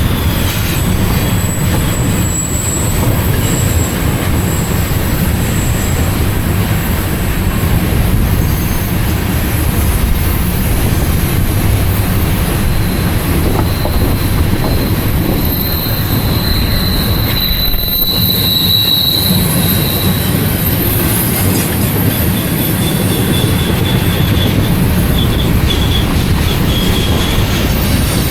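Freight train cars rolling past with a steady heavy rumble, wheel flanges squealing in thin high tones that are strongest a little past the middle.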